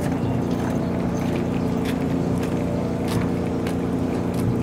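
Truck engine idling steadily, an even low hum, with scattered light clicks over it.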